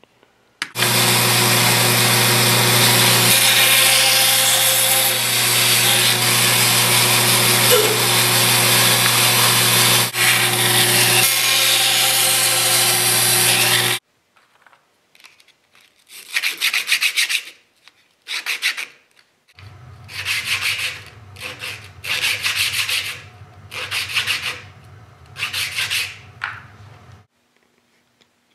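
A woodworking power tool runs loudly with a steady hum for about thirteen seconds, then stops suddenly. A series of short rubbing strokes on wood follows, each about a second long; the later strokes come over a quieter motor hum.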